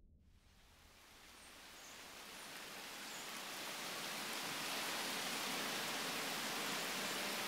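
Heavy rain, a steady hiss fading in over the first few seconds and then holding steady.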